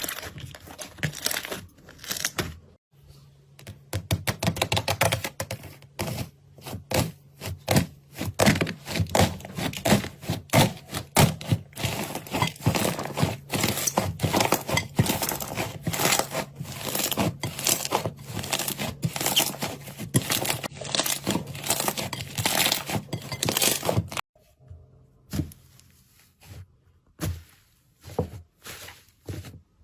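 Slime being squeezed and worked by hand, giving dense crackling and popping. There is a short break about three seconds in. Near the end the sound drops to sparse, quieter squishes and clicks.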